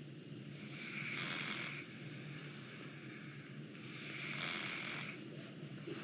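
Nasal snoring of a sleeping man: two long, hissy breaths through the nose about three seconds apart, over a steady low background hum.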